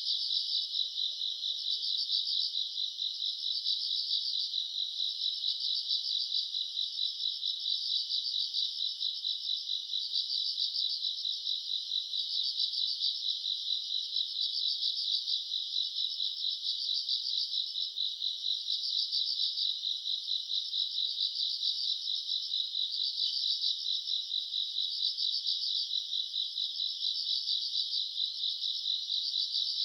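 A chorus of crickets and other grass insects chirping on a summer night: a continuous high, rapidly pulsing trill that swells and fades every second or two.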